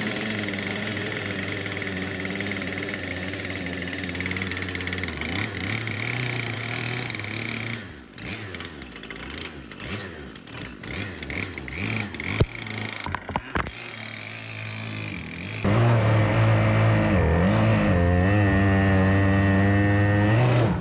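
Stihl 088 two-stroke chainsaw engine driving a home-built surface-drive outboard on a small boat, running steadily at speed. It drops to a quieter, uneven sound with a few sharp clicks in the middle. About three-quarters of the way in it comes back loud and close, its pitch dipping and rising again as the boat gets under way.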